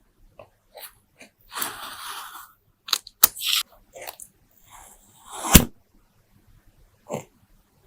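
Kinetic sand being squished and crumbled, heard as separate bursts of soft crunching and crumbling with a few sharp clicks. A sharp knock about five and a half seconds in is the loudest sound.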